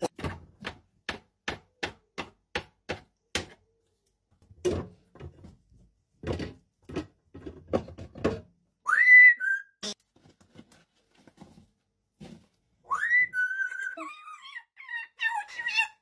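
African grey parrot rapping its beak on a plastic slushie machine jug: a run of irregular sharp taps. It then gives a rising whistle a little past halfway, and near the end another rising whistle that runs on into warbling chatter.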